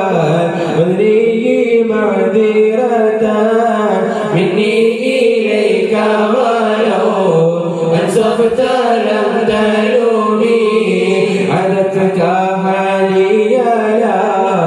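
A group of men chanting an Arabic qaseeda unaccompanied into microphones, in long, gliding melodic phrases.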